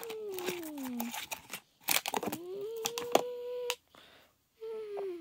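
A whining tone in the manner of a garbage truck's hydraulics, with light clicks and rattles from the plastic toy garbage truck's hopper as it is worked by hand. The whine glides down in pitch, rises and holds for over a second, then starts high and glides down again near the end.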